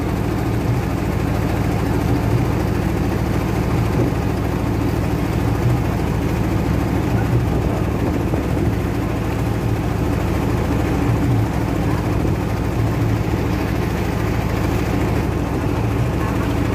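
Kelotok river-taxi boat's diesel engine running steadily under way, with water rushing in the churning wake.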